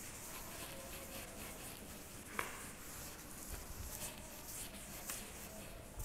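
Faint swishing strokes of a duster wiping chalk off a blackboard, with one sharper tap about two and a half seconds in.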